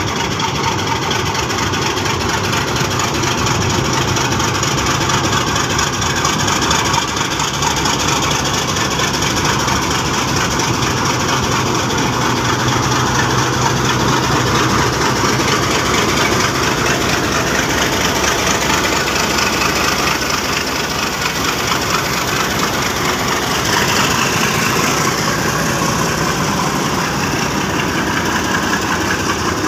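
Pakistan Railways HBU-20 diesel locomotive running as it pulls a container freight train slowly past at close range, with a steady low engine note. About three-quarters of the way through, a high whine falls in pitch.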